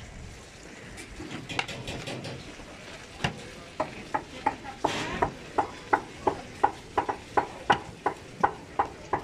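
A kitchen utensil knocking on a hard surface in a steady rhythm, about three strikes a second, starting a little before halfway. A brief hiss comes around five seconds in, over low clatter.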